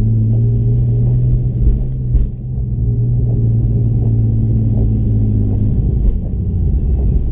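Porsche engine running at a steady, held speed, with a couple of short knocks about two seconds in, then its note dropping back near the end. The engine has reported misfires.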